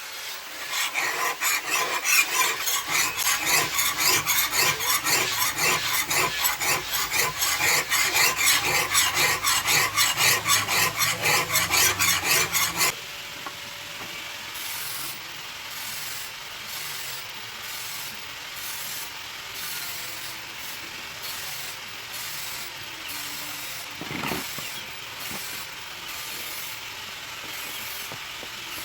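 A hand file scraping a steel knife blade in quick, even back-and-forth strokes, a couple of strokes a second. It stops abruptly about 13 seconds in, leaving a quieter steady hiss with faint regular ticks.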